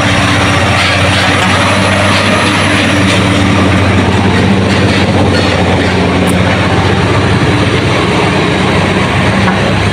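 Heavy vehicle engine running steadily and loudly, with a constant low hum under a broad rushing noise.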